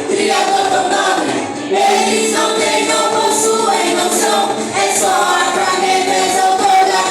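A choir singing a worship song, with several voices together moving from note to note without a break.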